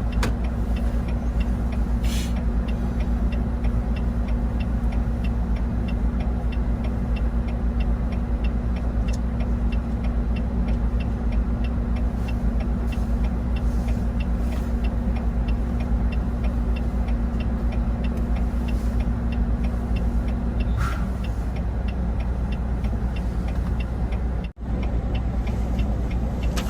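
Road vehicle on the move: a steady low engine and road rumble, with a steady hum that stops about twenty seconds in and a faint, regular ticking over it.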